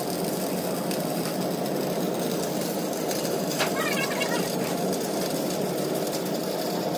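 Arc welding on a steel air-compressor tank: the welding arc crackles and hisses steadily.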